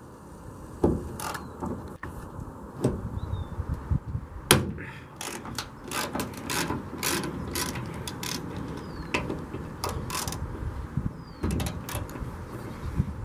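Ratchet wrench clicking in irregular runs as a Jeep hood-hinge bolt is worked loose, with a louder sharp snap about four and a half seconds in. The snaps are the paint cracking where it was painted over the hinge.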